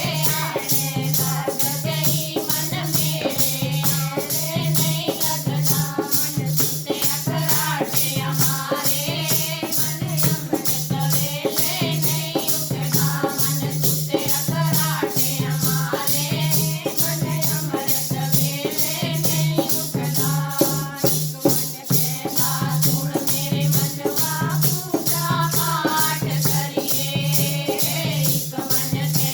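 Devotional kirtan music: a wandering melody over a steady beat kept by a shaken rattle and a low pulsing drum.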